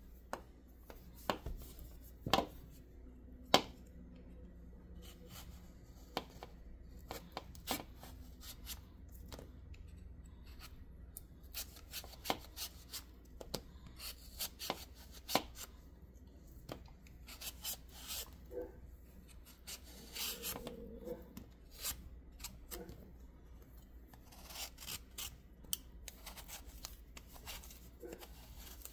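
Handheld vegetable peeler scraping strips of skin off a ripe mango, in short irregular strokes, with a few sharper clicks now and then.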